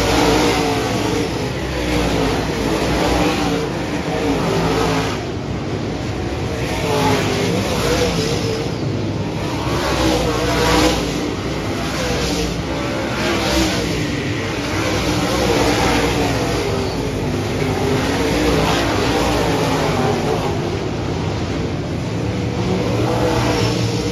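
A field of dirt-track modified race cars running at speed, their V8 engines revving up and down as cars pass close by one after another, the engine note rising and falling with each pass.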